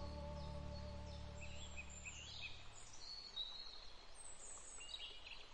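Faint ambient nature sound: small birds chirping in short, quick notes over a soft background hiss, while a held low musical chord fades out over the first few seconds.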